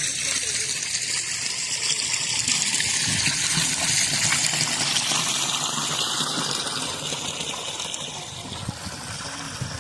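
River water rushing and gushing in a steady flow, easing off slightly over the last few seconds.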